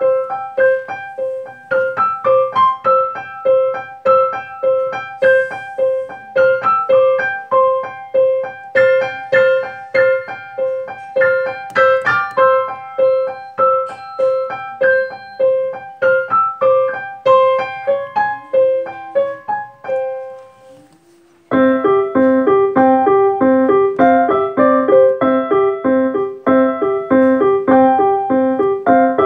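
Piano music played by hand on an electronic keyboard: a repeated middle note about twice a second under a melody. It slows and fades out about twenty seconds in. After a second's pause a new, lower section of repeated chords begins.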